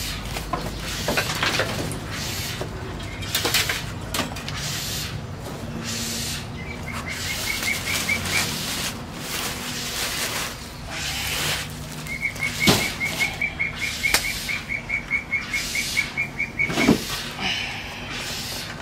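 Rustling, scraping and knocking as a wooden crate and a plastic bag of junk are pulled off an old amplifier, with two sharp knocks, one about two-thirds of the way through and one near the end. A small bird twice sings a fast, even trill of high notes, the second run longer.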